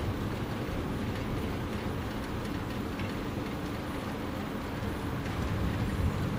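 Steady, low outdoor rumble with no distinct events, holding at an even level throughout.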